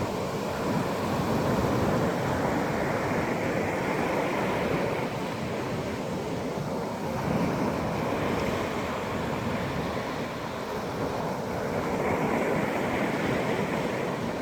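Sea waves breaking and washing up the beach. The surf swells and eases about every five seconds.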